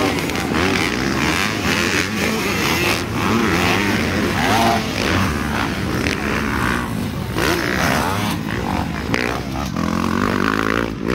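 Several motocross dirt bikes racing around the track, their engines revving up and down in overlapping rising and falling whines as the riders take the jumps.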